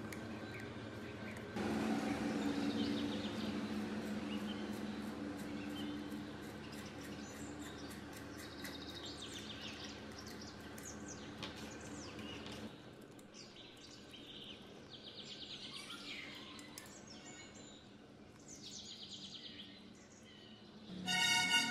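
Small clicks, taps and scrapes of a screwdriver and hands working loose the screw terminals and wiring of an electric water pump's pressure switch and motor terminal box, over a steady background hum, with many short high chirps.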